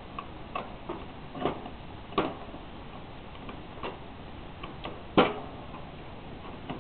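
Scattered light clicks and taps of a plastic clip being handled and fitted against a hamster cage's wire bars and plastic frame, with a sharper click about two seconds in and the loudest one about five seconds in.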